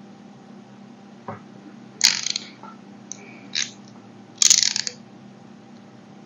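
Several short, crisp crunching and clicking sounds from a snap-off utility knife and fingers working a moulded kinetic sand shape. The two loudest come about two seconds and about four and a half seconds in.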